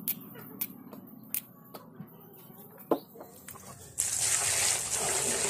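Bananas dropped by hand into a metal pot, giving a few scattered knocks, the sharpest about three seconds in. About four seconds in, water starts pouring from a container into the pot over the bananas with a sudden, steady gush.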